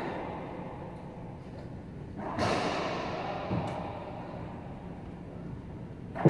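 Racquetball serve: a racquet strikes the ball with one sharp crack near the end, echoing around the enclosed court. About two seconds in there is a duller thud with a long echo.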